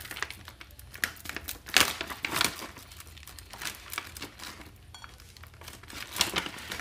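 Plastic stand-up pouch of cocoa powder crinkling as hands open it and reach inside, in irregular bursts that are loudest about two seconds in and again near the end.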